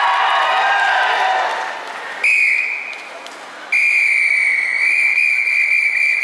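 Audience applause dying away, then a whistle blown at one steady pitch: a short blast about two seconds in, then a long held blast from nearly four seconds in to the end.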